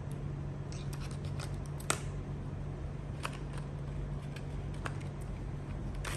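Light, scattered clicks and taps of small plastic parts and screws being handled while the helicopter's body is taken apart, with one sharper click about two seconds in.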